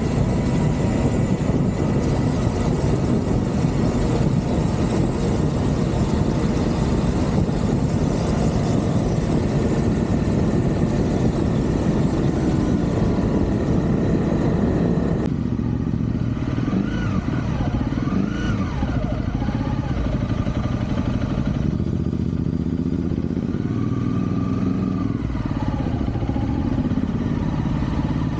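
Motorcycle engine running steadily while riding, with wind noise on the microphone that cuts off abruptly about halfway through.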